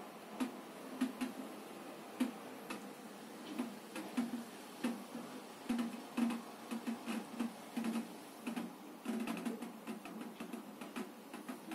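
Thick honey pouring from a honey extractor's gate valve into a mesh strainer, giving irregular soft plops and ticks as the stream lands in the pooled honey.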